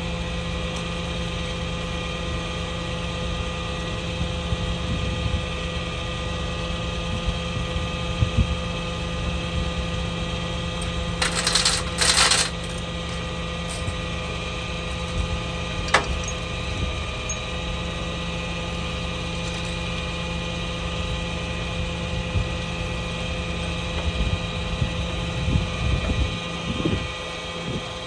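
Tow truck's engine idling steadily, with small metallic clinks of tow chains being handled, a short rattle about eleven seconds in and a single sharp clank a few seconds later.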